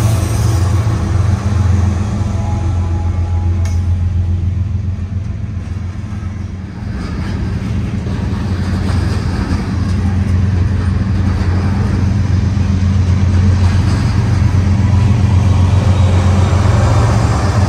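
Diesel locomotives of a Kansas City Southern de México freight train working hard as they pass close by, a steady low engine drone. The drone eases a few seconds in as the hopper cars roll past, then builds again as more locomotives in the middle of the train come by.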